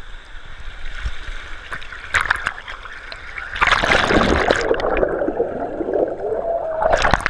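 Pool water splashing around an action camera, which then goes under: loud churning and bubbling heard muffled underwater, with the camera breaking the surface again in a splash near the end.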